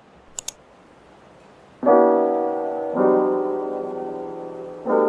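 Soft piano background music comes in about two seconds in, with slow held chords and a new chord every second or two. Before it there is a steady hiss of rain, broken by two quick clicks.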